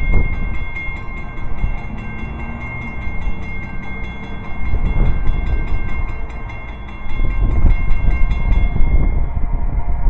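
EMD SD50-3 and SD40-2 diesel locomotives of a freight train approaching with engines at full throttle: a heavy low rumble that swells louder in the second half, with a steady high whine over it.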